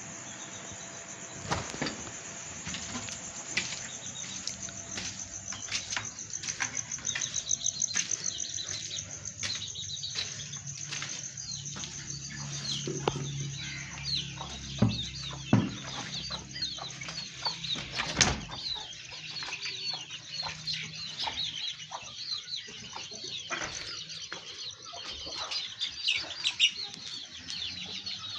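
Chickens in a poultry yard, with quick high chirps repeating from several seconds in, over a steady high whine and scattered knocks.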